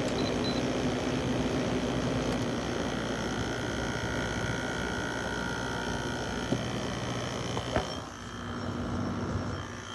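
LG LW6017R 6,000 BTU window air conditioner running: a steady rush of fan air over a low compressor hum. A click comes near the end, and the sound then drops a little and turns duller.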